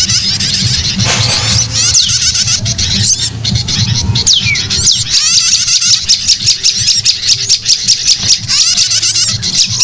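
A bird-lure recording of small songbirds: a dense, continuous chatter of rapid high chirps with repeated quick downward-sweeping whistles. A steady low hum runs underneath.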